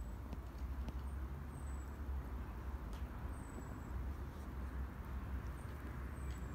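A steady low rumble of outdoor background, with faint short, high, falling chirps every second or two and a few soft clicks.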